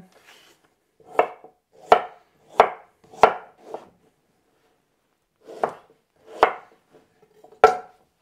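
Kitchen knife chopping a parsnip on a wooden cutting board: about eight separate strikes, five in a steady run, then after a pause of nearly two seconds, three more.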